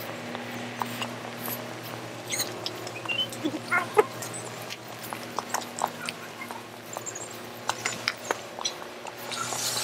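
Scattered short animal calls and sharp clicks over a steady low hum, the calls busiest in the first half.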